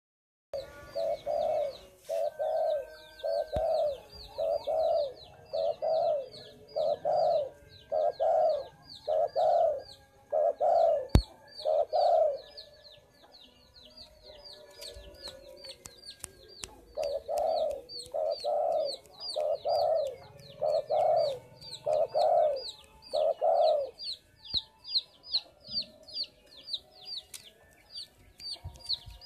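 Spotted dove (derkuku) cooing in two long series of repeated coos, about one a second, with a pause of a few seconds between them. A small bird's high chirps repeat quickly and steadily underneath.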